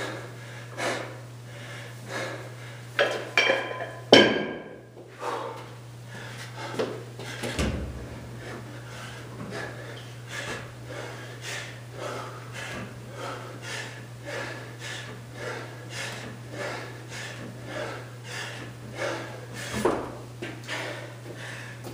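A loud clank about four seconds in as a kettlebell is set down, and a heavy thud a few seconds later. Then a run of quick, evenly spaced knocks and rattles from a pipe pull-up bar in its wooden mounts during kipping pull-ups, over a steady low hum.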